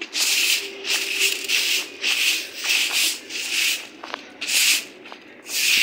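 Broom sweeping a grain-strewn concrete floor, a series of swishing strokes roughly one a second.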